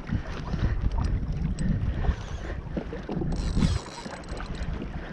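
Wind buffeting the microphone over water lapping against the hull of a Hobie Outback kayak: an uneven low rumble with scattered small clicks. A brief hiss comes about three and a half seconds in, then the rumble drops suddenly.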